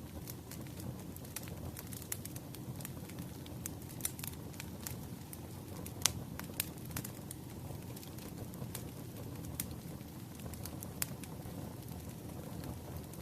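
Wood fire burning: a steady low rumble with frequent irregular crackles and pops of the burning logs, one sharper pop about six seconds in.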